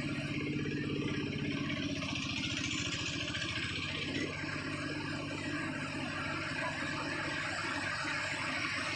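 An engine idling steadily close by, with a rushing hiss of turbulent floodwater behind it that swells for a second or two a few seconds in.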